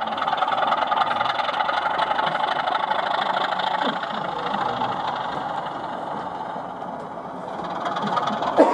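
Model Class 24 diesel locomotive running past on the layout: a steady mechanical running sound with an engine-like clatter, over faint crowd chatter. Near the end, a short sweeping tone dips and rises, the loudest moment.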